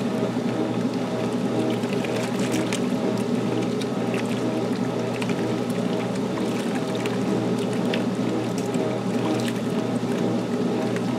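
Restored 1978 Maytag LA806 top-load washer running mid-cycle. Its motor gives a steady hum under the sound of water churning in the tub, with scattered small clicks and splashes.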